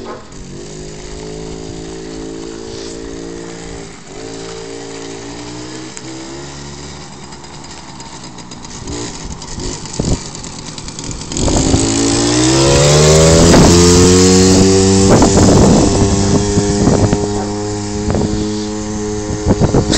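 Small engine of a kids' mini quad bike running steadily, then speeding up about 11 seconds in: its pitch rises and it gets much louder, then holds a high, loud note.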